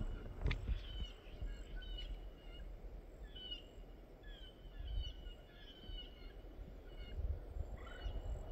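Wild birds calling: many short, quick chirps repeated throughout, over a low rumble of walking and handling noise, with a sharp click about half a second in.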